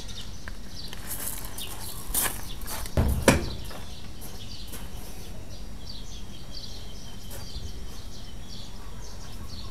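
Birds chirping over steady outdoor background noise, with a few dull thumps about two to three seconds in, the last of them the loudest.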